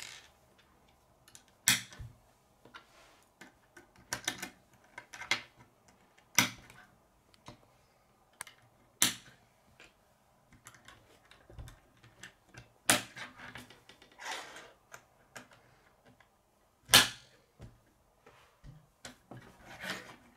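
Plastic K'nex rods and connectors clicking and knocking against each other and on a wooden tabletop as they are handled and fitted together: irregular sharp clicks a second or a few seconds apart, with fainter taps between.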